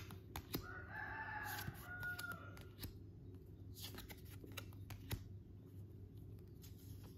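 A rooster crowing once, faintly: a single call of about two seconds in two joined parts, starting about half a second in. Scattered soft clicks and rustles of playing-card-sized cards being handled around it.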